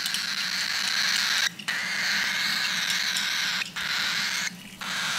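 Baby cockatiel's food-begging call: a long, noisy, continuous call, broken by three short pauses, the sign of a hungry chick wanting its hand-feeding formula.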